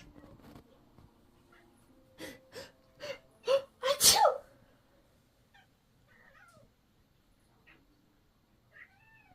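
A person sneezing: a few short catching breaths come quicker and louder, then the sneeze about four seconds in. Afterwards a cat meows faintly a couple of times.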